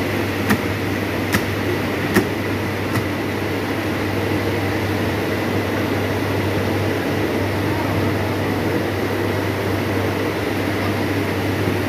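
A steady mechanical hum with a low drone, from a machine running, with four light clicks spread over the first three seconds.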